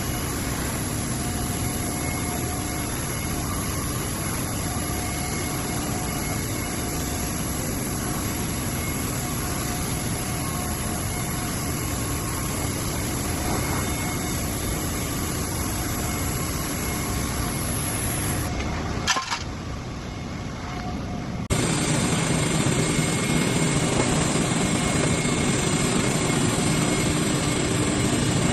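Steady machinery drone. It drops to a quieter stretch with a sharp click about two-thirds of the way through, then resumes louder.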